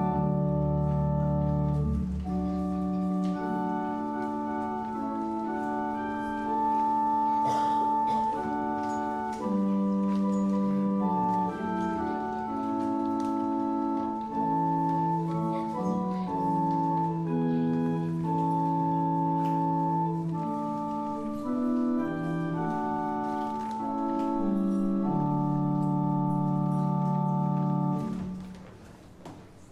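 Church organ playing slow, sustained chords, the music stopping shortly before the end.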